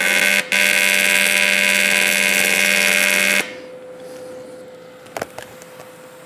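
TIG welding arc buzzing steadily as filler rod is tacked onto metal tubing, with a momentary break about half a second in, then cutting off about three and a half seconds in. A few faint clicks follow near the end.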